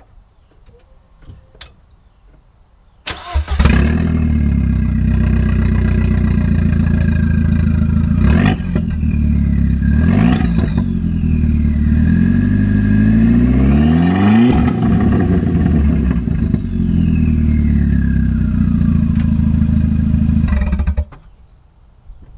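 A 2002 VW Passat 1.8T's turbocharged four-cylinder engine, with no exhaust past the turbo, only a straight pipe, starts about three seconds in and runs extremely loud. It idles with a few short blips and one longer rev about halfway through, after which a high whine falls away. The engine is switched off shortly before the end.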